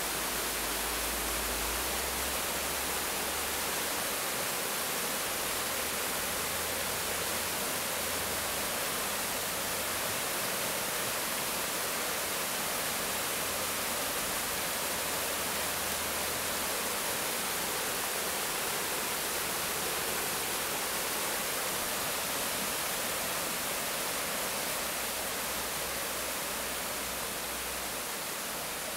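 River water rushing over a rocky cascade: a steady, even hiss with a low rumble coming and going underneath, a little quieter near the end.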